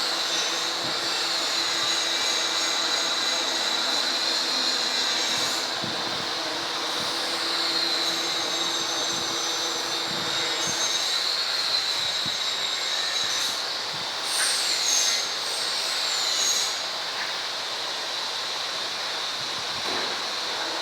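CNC milling machine running, with a steady high-pitched whine and higher tones that waver and slide up and down over a constant hiss.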